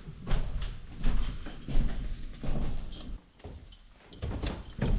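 Footsteps and shuffling on a narrow wooden staircase, a string of uneven low knocks with a quieter gap a little past three seconds.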